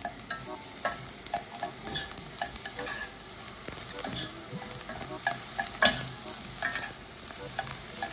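Tiny dried anchovies (myeolchi) being stirred and tossed in a stainless steel skillet with a metal spoon and chopsticks over low heat, a soft steady sizzle under irregular scrapes and clicks of the utensils on the pan.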